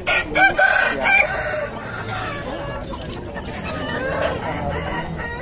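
Roosters crowing and clucking, several calls overlapping, loudest in the first second or so and again a little after the middle.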